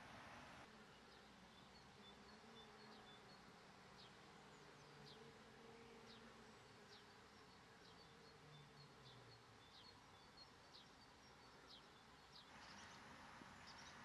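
Faint, thin, high calls of small songbirds: quick downward-slurred notes and short chips, repeating every second or so over a faint low hum.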